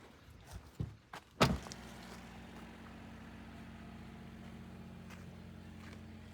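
A few faint knocks and one loud thump about a second and a half in, then a steady low hum.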